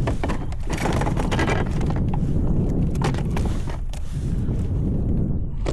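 Handling noise of a fish being unhooked with pliers on a kayak: scattered knocks, clicks and rustles over a steady low rumble of wind on the microphone.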